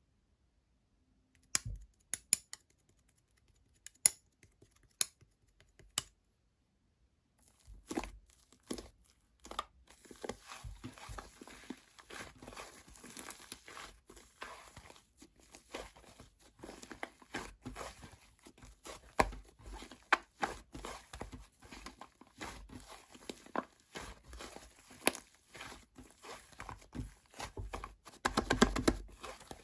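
White fluffy clay slime being handled: a few separate sharp clicks at first, then from about eight seconds in a steady run of small crackles and pops as it is pressed and pulled, getting denser near the end.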